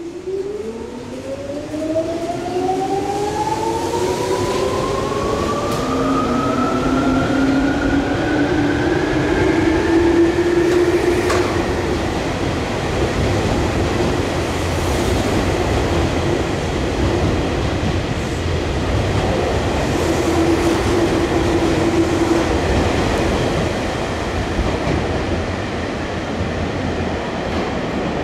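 Tokyu 8500 series electric train with field-chopper control pulling away: its traction motors' whine rises steadily in pitch for about ten seconds as it gathers speed, then holds steady under continuous running noise.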